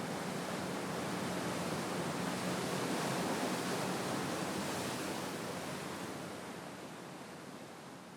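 Sea waves surging and washing ashore in a steady rush, fading out gradually over the last few seconds.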